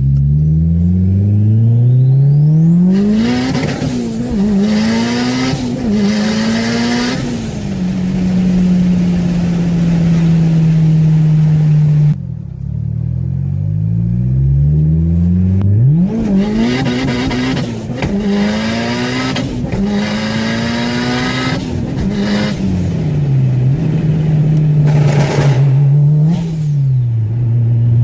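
Tuned turbocharged car engine revved hard again and again, its pitch climbing and dropping with each blip. A loud high rushing hiss rides on the revs. The sound changes abruptly about twelve seconds in, to another engine revving the same way.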